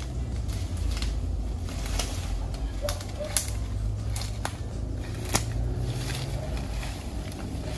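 Dry dead branches cracking and knocking as they are pulled up and dragged through undergrowth for firewood: several sharp cracks, the loudest about three and a half and five and a half seconds in, over a steady low rumble.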